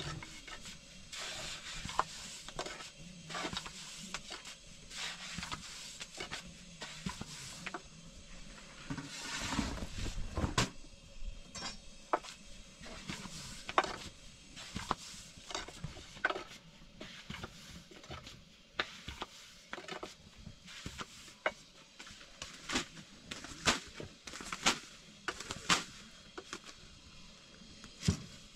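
Long thin wooden rolling pin working flatbread dough on a low round wooden board, with irregular light knocks and clacks of the pin against the board. A louder scuffing stretch comes about nine seconds in.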